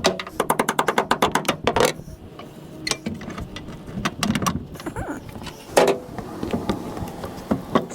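Quick back-and-forth paintbrush strokes on a wooden floor, about eight a second, which stop about two seconds in. Then come a few scattered knocks and handling noises.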